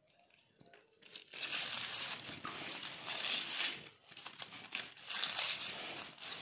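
Aluminium foil crinkling as it is pulled open by hand from around a baked fish. It starts about a second in and breaks off briefly about four seconds in before going on.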